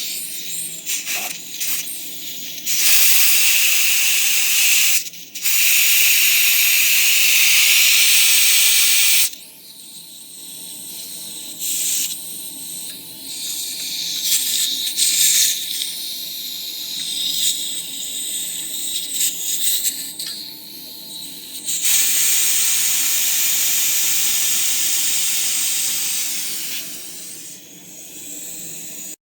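Pressurized gas hissing out of the air conditioner's refrigerant lines in two long bursts of about six seconds each, with shorter spurts between, over a faint steady hum.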